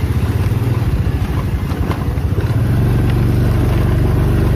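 Motorcycle engine running while riding along, a low drone that becomes steadier a little over halfway through.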